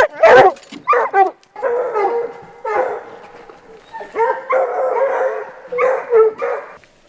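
Several coonhounds baying together in long, overlapping bawls, loudest in the first second, then a steady chorus of voices that stops shortly before the end.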